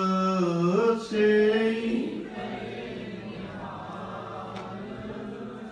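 A man sings a line of Sikh gurbani into a microphone in long held notes. From about two seconds in, the congregation sings the line back, quieter and more diffuse, in a call-and-response chant.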